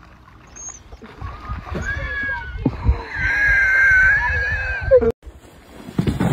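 A dog splashing and thrashing in a muddy puddle, with a long, high-pitched, wavering cry over the splashing about three seconds in. The sound cuts off abruptly about five seconds in.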